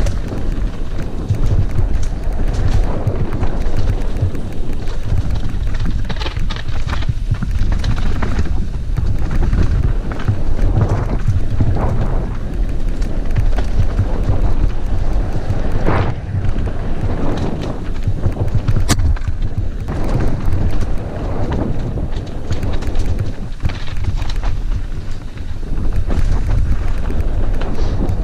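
Wind buffeting the microphone of a camera on a mountain bike descending a rocky dirt trail: a steady low rumble with the crunch and rattle of tyres over loose stones. A couple of sharp knocks from the bike hitting rocks come in the second half.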